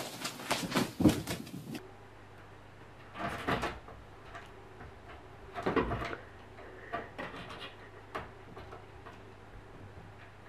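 Wooden door knocking and rattling as a cat jumps up and scrabbles onto its top edge, in two short bursts, the second, about six seconds in, with a heavier thump. It opens with a quick cluster of sharp clicks and knocks.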